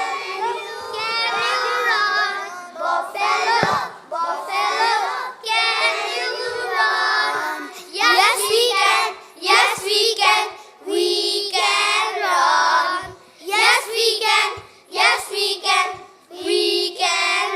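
A group of young children chanting a rhyme together in chorus, in high sing-song voices phrase after phrase.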